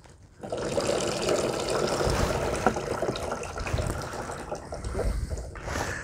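Water poured from a plastic pitcher over a potted orchid with coarse substrate, splashing through the pot and roots and draining straight out below. The plant is being soaked thoroughly. The pouring starts about half a second in and tapers off near the end.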